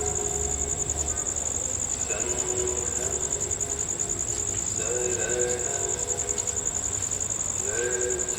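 Crickets chirping: a steady, high, rapidly pulsing trill, with faint voices in the background.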